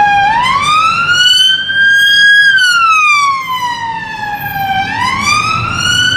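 UK police BMW patrol car's siren on its wail tone: one pitch rising slowly, falling over about two and a half seconds, and climbing again near the end. Street traffic noise runs underneath.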